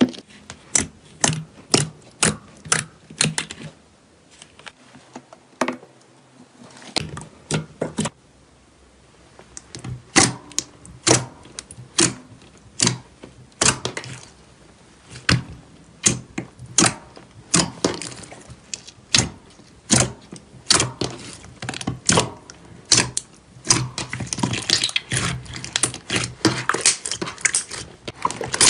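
Clear jelly slime pressed and poked with fingertips, giving sharp sticky pops and clicks a few times a second. In the last few seconds, as the sheet is lifted and pulled up, the pops crowd into denser crackling.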